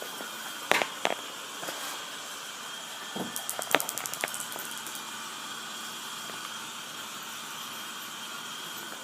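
Two sharp knocks a little under a second in, then a quick rattle of fast ticks and taps for about a second and a half, over a steady hiss.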